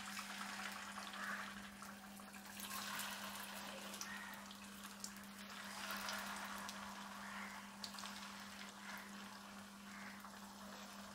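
Masala-coated chicken pieces sizzling in hot coconut oil in a pan, the sizzle swelling each time another piece is dropped in, with a steady low hum underneath.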